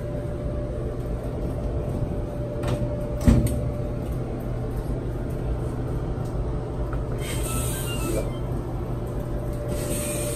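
A steady low machine hum runs throughout. About three seconds in, a single thump as the top-loading washer's lid is shut. Later come short electronic beeps from the GE washer's control panel as its buttons are pressed, twice.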